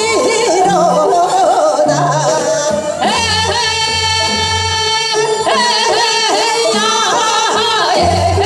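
Two women singing Seodo sori, the Korean folk song style of the northwestern provinces, in a wavering, heavily shaken voice through a PA over an amplified backing track with a low drum beat. About three seconds in, one long steady note is held for about two seconds before the wavering melody resumes.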